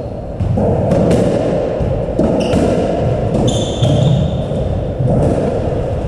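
Squash rally: sharp knocks of the ball off rackets and the court walls at irregular intervals, with short high squeaks of court shoes on the wooden floor, in a reverberant hall.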